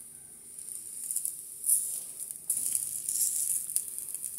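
Steak sizzling and crackling on a hot flat-top griddle while it is turned with a metal utensil. The crackle has sharp ticks in it and grows louder past the middle.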